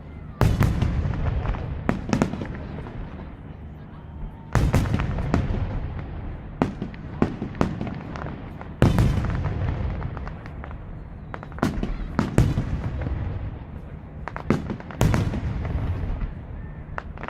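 Aerial fireworks display: a rapid run of sharp shell bursts. A few big booms each trail off in a long low rumble, with smaller reports going off between them.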